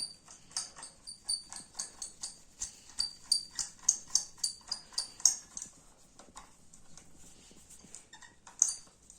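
Screwdriver driving the last screw into a clothes iron's housing: a quick series of sharp clicks, about three to four a second, for some five seconds. A lone click follows near the end.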